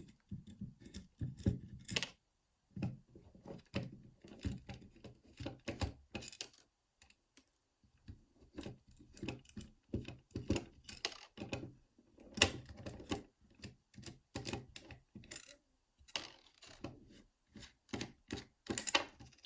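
Small nuts being undone from the bolts of a Squire 660 padlock: irregular light metallic clicks and ticks, with a few short pauses.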